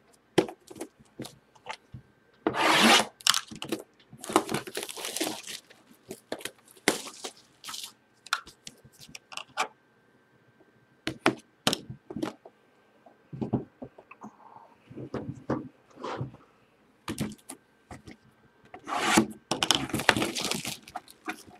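Hands handling sealed cardboard trading-card boxes and tearing and scrunching off their plastic shrink-wrap. There are loud bursts of crinkling and rustling about three, five and twenty seconds in, with scattered taps and knocks of cardboard in between.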